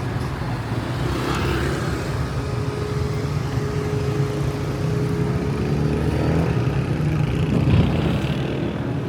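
City street traffic: motor vehicle engines running close by in a steady low rumble, with a brief louder swell near the end as a vehicle passes.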